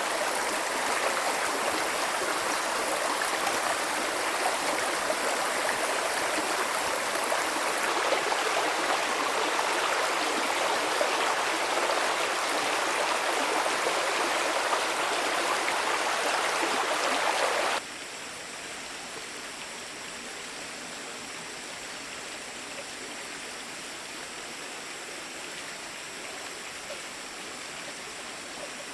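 Steady rush of flowing stream water, which drops abruptly to a quieter flow a little over halfway through.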